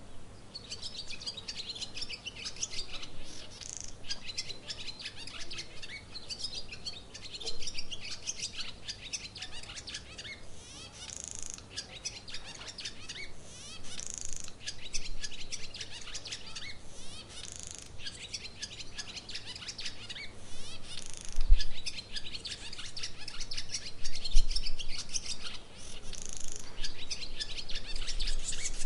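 A chorus of many small birds chirping and twittering, with their calls overlapping continuously. A few low thumps come in the second half.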